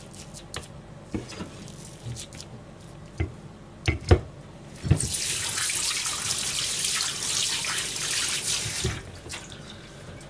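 A few sharp knocks of a cleaver against a plastic cutting board, then a kitchen tap running into a stainless steel sink for about four seconds as a hand is rinsed under it.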